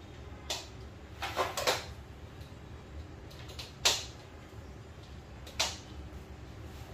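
Screen-fabric eyelets snapping onto the press studs of a portable projection screen frame: a few sharp clicks, three close together about a second and a half in, the loudest about four seconds in, and one more near the end.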